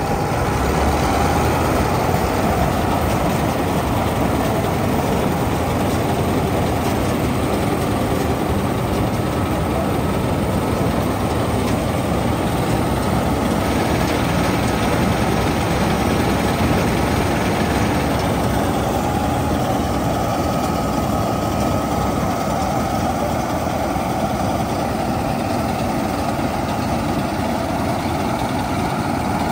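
Lovejeet Crop Star combine harvester running steadily as it cuts paddy: its diesel engine works together with the turning reel, header and threshing gear in one continuous, even machine noise.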